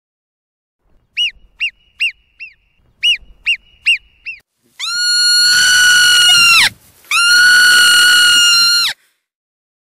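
Marmot whistling: two quick runs of four short, sharp chirps, then two long, steady whistles of about two seconds each.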